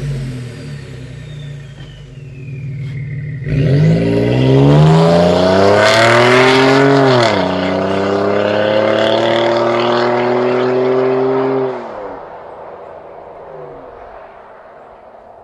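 3.5 EcoBoost twin-turbo V6 through an SPD whistler catback exhaust. Over the first three seconds a high whistle glides down in pitch as the revs fall. About three and a half seconds in the engine comes on hard and the note climbs steeply, drops sharply at a gear change a little past seven seconds, then holds. About twelve seconds in the sound drops off and fades away.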